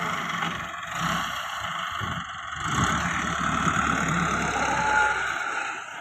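Massey Ferguson 385 tractor's diesel engine running at working revs, heard close by. It grows louder about three seconds in and eases off near the end.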